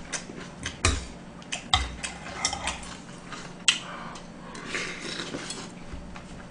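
A metal spoon and chopsticks clinking and scraping against a black ttukbaegi pot of gomtang, in irregular sharp clicks about a second apart, with quieter eating sounds as spoonfuls are taken.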